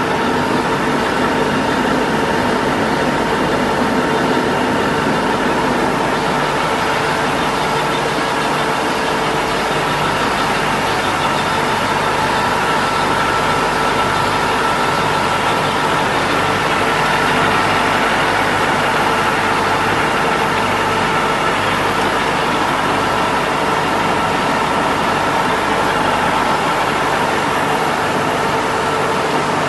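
2008 Tesflex 250 eight-colour flexo label printing press running in production: a loud, steady mechanical din with several steady humming tones and no change over the whole stretch.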